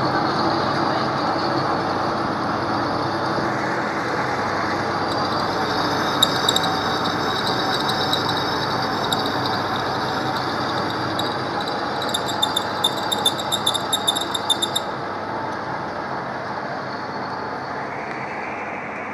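Lathe running steadily during step turning, with a quick run of sharp clicks about two thirds of the way through.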